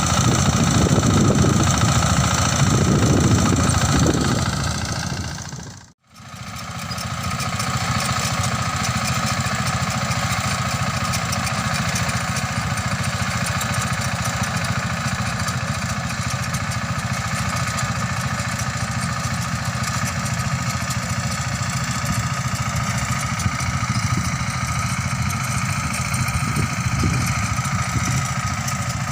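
Mini rice combine harvester running: a steady engine drone with a continuous higher mechanical whine. It fades out briefly about six seconds in, then carries on steadily.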